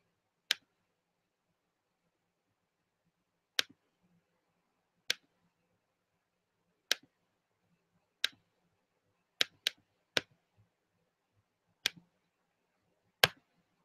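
Computer mouse clicking: about ten single sharp clicks at uneven intervals, two of them close together about nine and a half seconds in.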